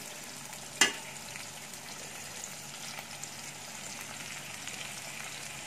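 Squid pieces frying in oil in a wok with garlic and onion, sizzling steadily with fine crackles. One sharp knock about a second in.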